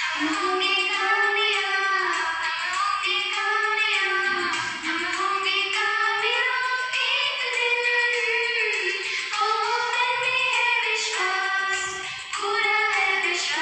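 A woman singing a prayer song in long, smooth phrases.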